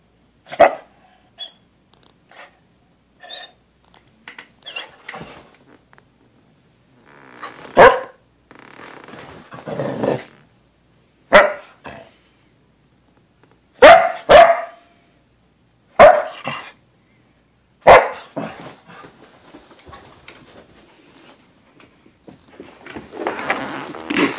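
A dog barking in single sharp barks every few seconds, about seven loud ones with softer sounds between. There is rustling near the end.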